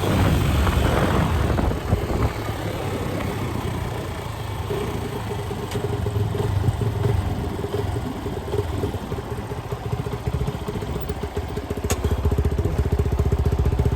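RKS motorcycle's engine running, with a steady pulsing exhaust note and a held tone that comes in about a third of the way through, its loudness rising and falling with the throttle. The engine is running on a newly replaced cylinder and piston, which the owner says has changed its sound.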